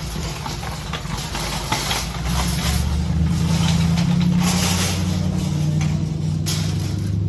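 A German shepherd chewing and crunching raw meat and bones, with a few sharp cracks. A loud, steady low engine hum runs underneath.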